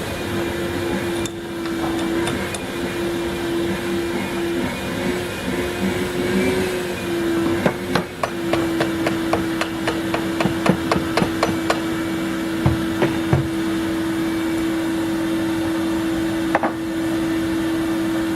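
A steady machine hum, with a run of quick hammer taps at about three a second for some four seconds in the middle, then a few single knocks.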